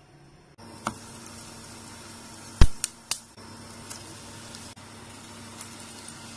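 Sesame-coated sweet potato pancakes frying in shallow oil in a nonstick pan: a steady sizzle starting about half a second in. A few sharp knocks come in the middle, the loudest about two and a half seconds in.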